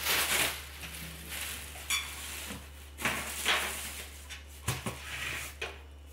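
Plastic bin liner rustling and crinkling as it is fitted into a pedal bin, with a few sharp knocks as the bin's top is handled and set back on, the loudest a little before five seconds in.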